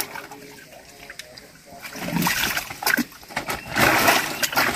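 Hands groping through mud and muddy water in a drained pool hole, splashing and sloshing in irregular bursts that start about two seconds in, while the pool is searched for snakehead and catfish by hand.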